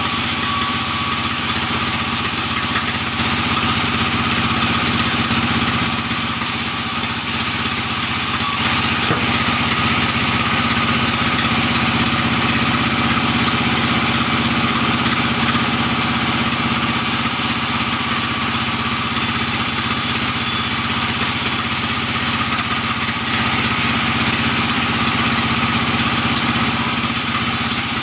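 A sawmill saw runs steadily as a long albasia (sengon) plank is pushed through it and ripped lengthwise into beams.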